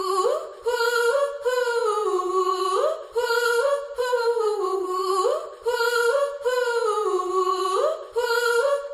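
Recorded pop song intro: a lone female voice sings a wordless, repeating melodic phrase with no accompaniment. Each phrase swoops upward and breaks off after a second or so before the next begins.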